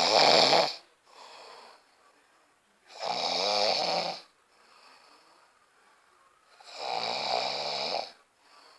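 A sleeping person snoring loudly: three long snores about three and a half seconds apart, with softer breaths between them.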